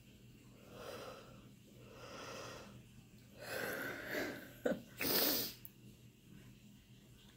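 A woman's breathing, with no words: soft yawning breaths, then louder breathy exhales, ending with a sharp click and a loud, short burst of breath about five seconds in.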